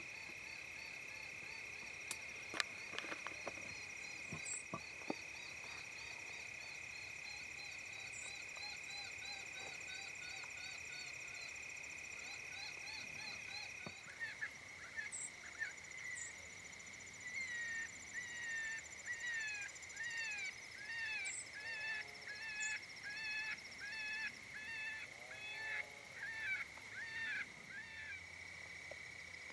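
Electronic predator caller playing a rabbit distress sound: squealing, wavering cries repeated about once a second, louder and plainer from about halfway through. A steady high insect trill runs underneath.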